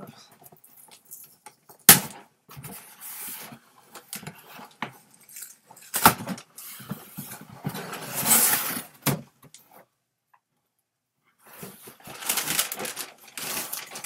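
Cardboard shipping box being opened by hand: the tape is slit with a pen-like tool and the flaps scrape and rustle. Sharp knocks come about two and six seconds in, and the scraping is loudest about eight seconds in.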